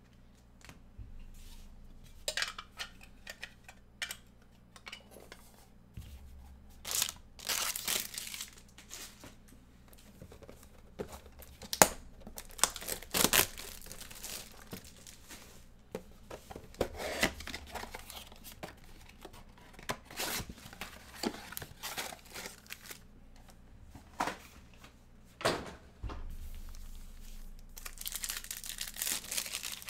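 Plastic shrink wrap being torn and crinkled off a sealed box of trading cards by hand, in irregular bursts of rustling and crackling, then a foil card pack being torn open in a longer stretch of crinkling near the end.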